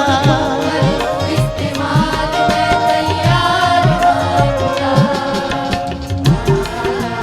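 Instrumental interlude of a Punjabi worship song: a steady hand-drum beat under a sustained melodic lead, with the rhythm changing near the end.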